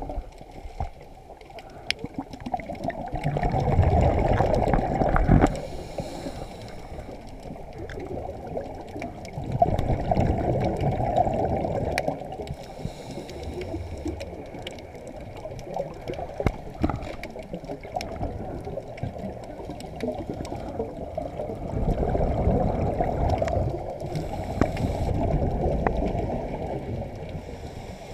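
Underwater sound heard through a GoPro's waterproof housing: a scuba regulator's exhaled bubbles rush loudly for a few seconds at a time, three times, over a low muffled water noise. Scattered sharp clicks sound throughout.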